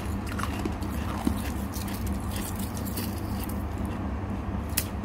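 Freezer frost crunching and crackling as fingers break and pick up clumps of it in a steel bowl: many scattered sharp clicks, with a sharper crack about a second in and another near the end, over a steady low hum.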